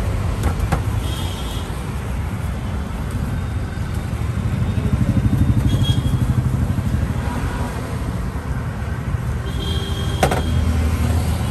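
Road traffic running steadily, with one motor vehicle's engine growing louder and pulsing for a couple of seconds near the middle before fading again.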